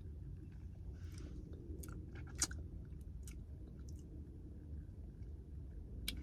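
A person eating soup: chewing, with a few short sharp clicks, the loudest about two and a half seconds in, over a steady low rumble.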